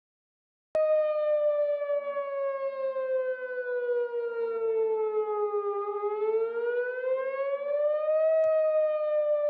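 Outdoor tornado warning siren wailing with a single steady-pitched tone that slowly falls over about five seconds and then rises again. It starts and stops abruptly.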